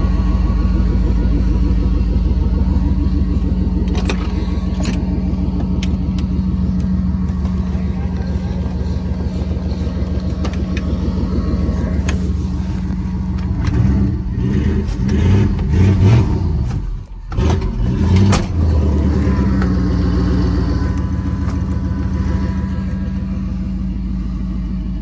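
An engine running steadily, its note surging unevenly for a few seconds around the middle, with a brief sharp drop partway through.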